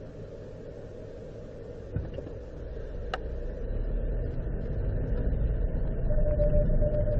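Inside the cabin of a Suzuki XBEE: a steady low rumble, a click about two seconds in, then running noise that grows louder as the car pulls away. Near the end a steady single-pitched whine sets in. This is the abnormal noise that appears when the car is driven off after a night below freezing and that dies out after about a kilometre.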